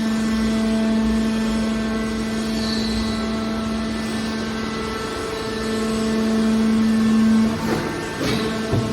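Hydraulic metal baler running: a steady machine hum-whine from its power unit. Near the end it drops off, followed by a few creaks and knocks.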